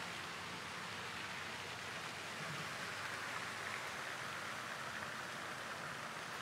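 Steady, even hiss of background ambience, with no distinct events.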